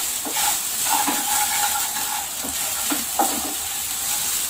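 Wooden spatula stirring and scraping dry flattened rice (poha) with fried onions around a pan, in irregular strokes, over a light frying sizzle.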